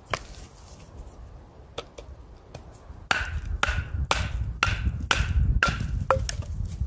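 Large sawback survival knife chopping into a dry stick, about seven sharp strikes at roughly two a second, starting about three seconds in. A single wooden knock comes at the very start.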